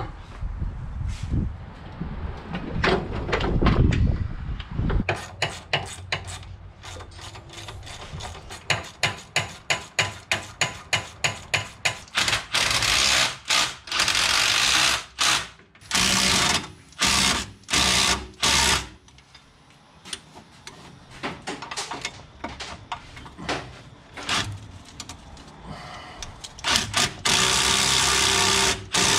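Handheld power tool run in short bursts: first about ten quick pulses, then several longer runs of a second or two, and one more long run near the end. A low rumble with knocks comes in the first few seconds.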